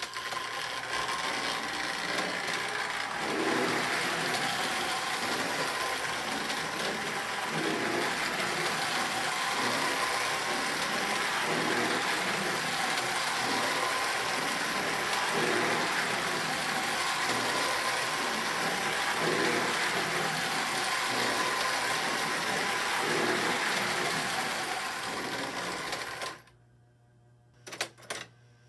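O27 toy electric train, a 70-ton diesel pulling a tank car and a caboose, running laps on a small oval of tinplate track: a steady motor whir with the wheels clattering over the rails. The sound swells about every four seconds as the train comes round the loop. It stops abruptly near the end, leaving a few faint clicks.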